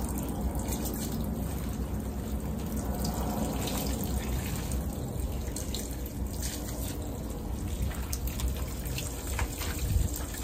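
Water running from a wall tap into a sink and splashing as shampoo is rinsed out of hair by hand, with scattered drips and splashes.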